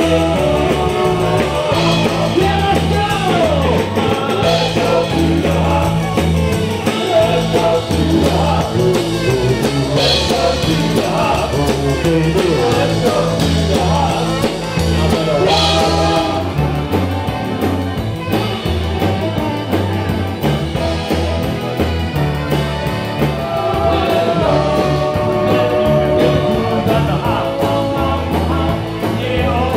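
Rock band playing a song, a singer's voice over a steady bass line and drums.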